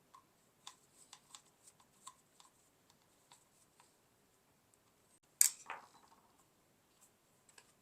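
Light clicks and ticks of the plastic parts of a Roomba i7 robot vacuum being handled during reassembly, with one louder sharp clack about five and a half seconds in.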